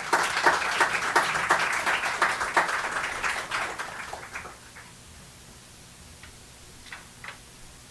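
A small audience applauding, the separate claps distinct, dying away after about four seconds. A couple of faint clicks follow near the end.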